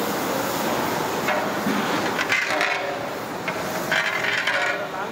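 A large aluminium cooking pot of boiling water making a steady rushing noise, with a metal ladle knocking and scraping against the pot a few times.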